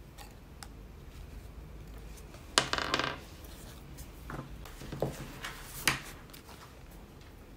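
Small metal jingle bells on a yarn-wrapped reindeer ornament jingling briefly as it is handled on a wooden table. The loudest jingle comes about two and a half seconds in, followed by a few short clinks and taps.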